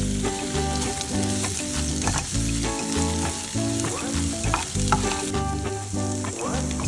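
Food sizzling as it fries in oil in a pan, with scattered short clicks of a utensil in the pan. Background music with a stepping bass line plays underneath.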